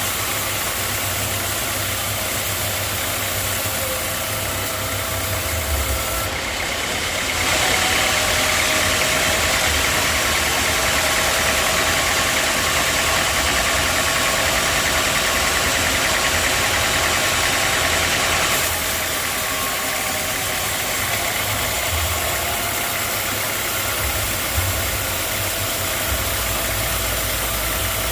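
Sawmill machinery running steadily. For about eleven seconds in the middle it grows louder and brighter, then drops back.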